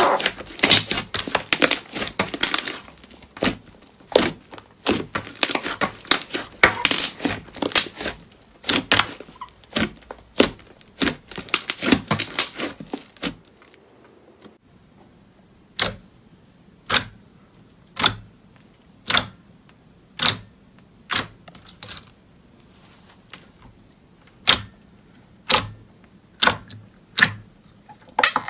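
Slime being squeezed and worked by hand, with a dense run of crackling and crunching typical of crunchy slime. About halfway through there is a brief pause, then single sharp pops or clicks come about once a second.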